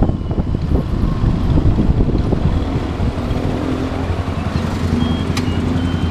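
Motorcycle engine running steadily at low revs, with wind noise on the microphone. A sharp click comes about five seconds in, and brief high-pitched tones sound near the end.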